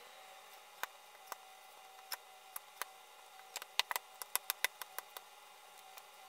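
Hands kneading sticky bread dough on a wooden chopping board: a string of sharp clicks and taps, scattered at first and bunched together about three and a half to five seconds in.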